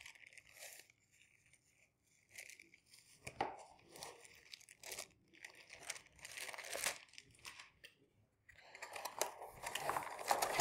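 Plastic packaging (bubble wrap and a zip bag) crinkling and rustling in the hands in short, scattered bursts. Near the end it turns to louder, denser rustling as a cardboard box is handled.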